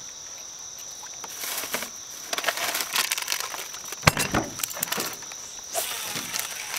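Steady high-pitched insect drone, with crackly handling noise during a fishing cast and one sharp knock about four seconds in.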